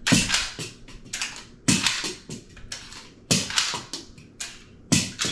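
A pistol being worked in a dry-fire drill with dummy rounds: four sharp metallic clacks about a second and a half apart, each followed by a few lighter clicks, and no shot.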